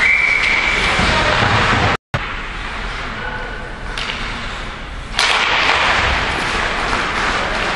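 A referee's whistle blows one steady note for about a second at the start, over a loud steady hiss of recording interference. The sound cuts out for an instant at about two seconds, comes back quieter, and the loud hiss returns suddenly a little after five seconds.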